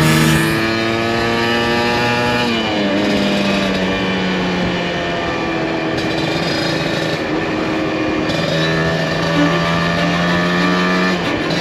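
Two-stroke Kawasaki Ninja motorcycle engine running under the rider. The revs drop about two and a half seconds in, then it runs at a steady pitch later on.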